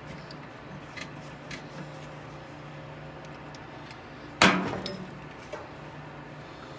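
Metal parts knocking against the sheet-metal base of a Maytag dryer while its idler pulley is worked onto the bracket by the motor. A few light clicks come in the first second and a half, then one loud, sharp metal clank with a short ring about four and a half seconds in, and a smaller click after it.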